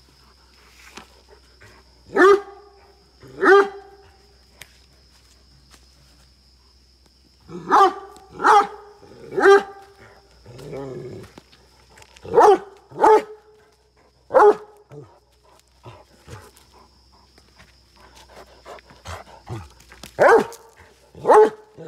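Great Dane barking aggressively in short bursts: two barks, then a run of three, a lower drawn-out growling sound, three more, and a last cluster near the end, about ten loud barks in all.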